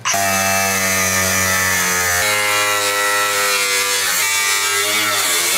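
Angle grinder cutting through the rusted sheet steel of a Chevy C10 cab, a loud, steady whine that starts abruptly and drops slightly in pitch about two seconds in.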